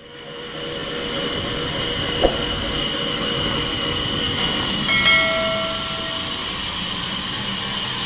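Band sawmill running: a steady mechanical whir and hiss with a thin high whine, fading in at the start. About five seconds in a brief squeal of several tones rises above it, and there are a few sharp clicks.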